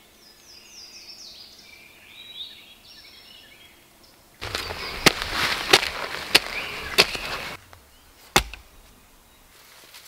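Birds chirping, then a short-handled shovel digging into soil: about three seconds of scraping with four sharp strikes roughly two-thirds of a second apart, then a single dull thud.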